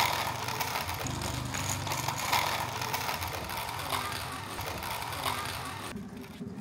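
Small wooden cart rolling over rough concrete and dirt, its plastic wheels and wooden frame rattling and grinding.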